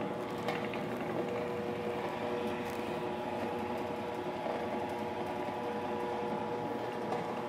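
Electric dough sheeter running with a steady motor hum as a sheet of dough feeds through its rollers.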